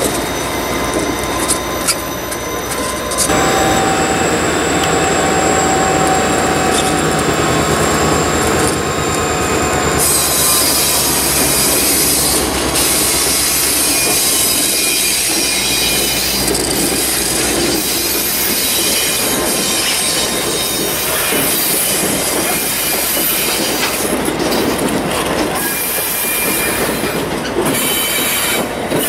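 Two diesel locomotives and their passenger train rolling slowly past, the engines running steadily. The passenger coaches follow, with wheel noise on the rails and a held squeal from the wheels in the first part.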